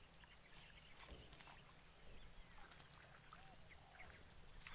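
Faint outdoor ambience: scattered short chirps and calls of small animals over a steady high hiss, with a couple of brief ticks about a second in.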